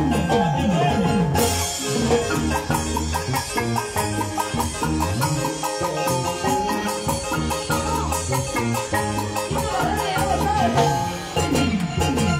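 Live instrumental band music: fast runs of plucked harp notes over a steady bass line and drums, with cymbals coming in about a second and a half in.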